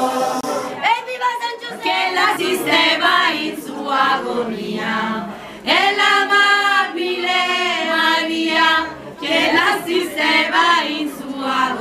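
A group of women singing together without instruments, phrase after phrase, with one voice led on a microphone.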